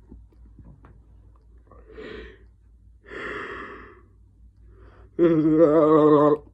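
A man yawning: two breathy breaths, then near the end a loud, drawn-out vocal sound with a wavering pitch lasting about a second.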